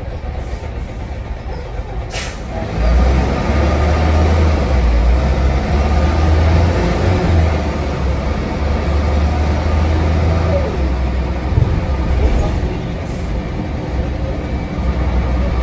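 Preserved bus heard from inside the passenger saloon: a short burst of air hiss from its pneumatics about two seconds in, then the diesel engine's low rumble grows louder as the bus pulls away and keeps driving.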